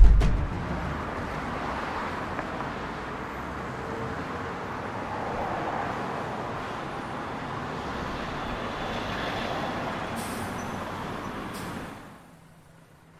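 Bus sound effect: a bus engine and road noise running steadily as the bus pulls in, with two short hisses of the air brakes near the end, then the sound drops away about twelve seconds in. A deep boom sounds at the very start.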